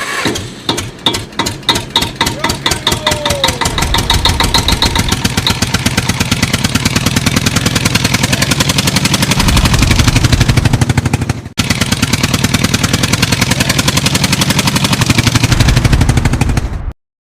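Engine starting and running: slow chugs that quicken over the first few seconds into a steady fast running rhythm, with a brief cut about two-thirds of the way through, then stopping suddenly near the end.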